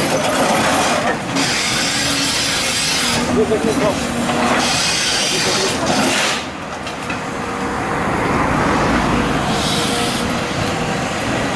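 Excavator working: loud, steady machine noise from the engine and hydraulics. It eases briefly a little past halfway, then builds again.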